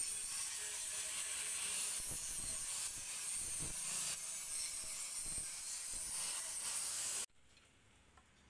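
Handheld angle grinder running and grinding down the end of a steel scooter exhaust pipe so it will fit into the silencer: a steady hiss with a high whine that cuts off suddenly about seven seconds in.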